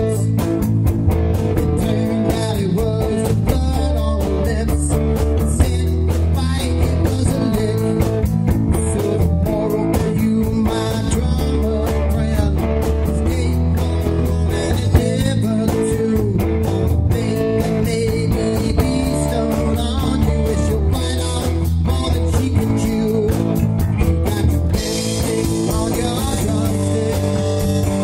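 Rock band playing an unrehearsed blues-rock number, with electric guitar over a drum kit. The cymbals get brighter and louder about three seconds before the end.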